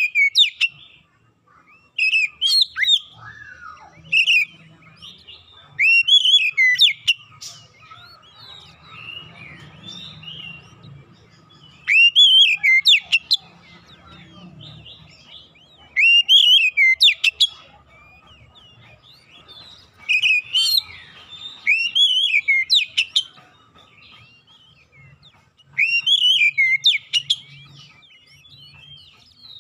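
Oriental magpie-robin (kacer) singing: short bursts of loud, rising whistled phrases mixed with sharp high notes, repeated every two to four seconds.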